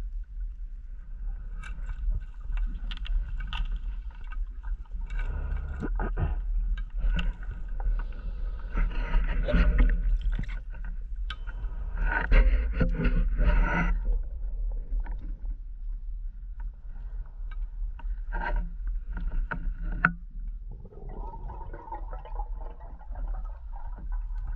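Underwater sound heard by a diver's camera: a constant low rumble with a faint steady whine, broken by bursts of a scuba diver's exhaled breath bubbling out, the longest about nine and twelve seconds in.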